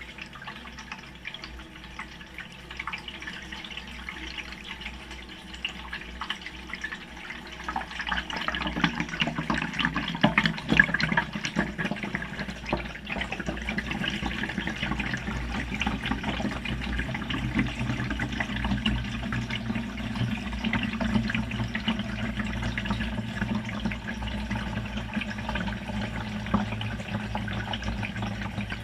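Water sloshing and splashing in a BEKO washing machine's drum, heard from inside the drum, over a steady low machine hum; it grows louder about eight seconds in.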